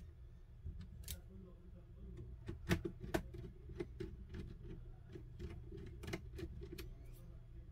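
Small precision screwdriver driving a screw into a Lenovo IdeaPad 330's bottom cover: a string of light, irregular clicks and ticks, the loudest a little under three seconds in.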